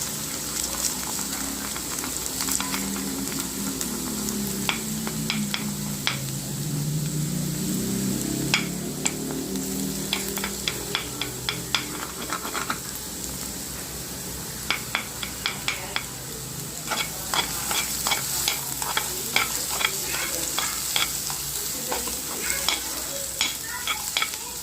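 Egg and chopped carrots and beans sizzling in oil in a kadai while a spatula stirs them, with frequent sharp clicks of the spatula against the pan.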